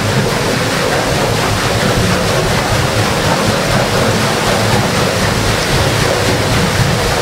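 Steady rush and splash of water at a watermill's waterwheel, recorded close up.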